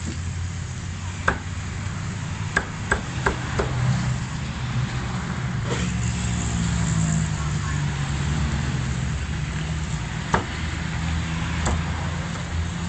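Meat cleaver chopping roast chicken on a thick wooden chopping block: sharp single chops, a quick run of four about two and a half seconds in, then a few spaced-out ones. A steady low rumble runs underneath.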